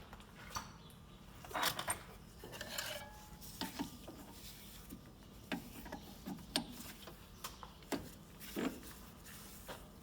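Small steel injector-tube tools being handled and cleaned by hand: light metal clicks and clinks, scattered irregularly, with a few brief scratchy rubbing strokes.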